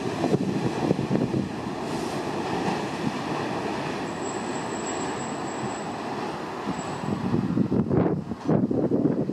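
R42 subway train on an elevated line pulling out of a station, its wheels and cars giving a steady rumble on the track structure, with louder uneven surges near the end.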